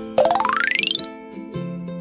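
Children's cartoon background music with a sound effect laid over it: a fast run of clicks rising steadily in pitch for about a second, just after the start.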